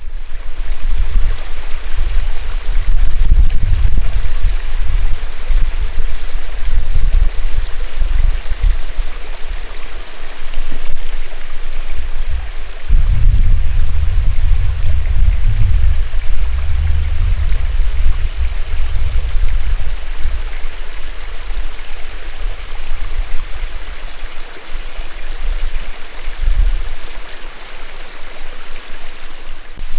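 Steady rush of creek water cascading over rocks, with irregular low rumbles of wind buffeting the microphone, heaviest in the first few seconds and again around the middle.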